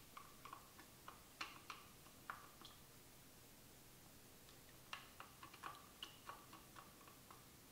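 Faint, irregular clicks and taps of a wooden stirring stick against the sides of a plastic tub as it stirs an oily pine-tar and linseed-oil mixture, with a quiet stretch in the middle.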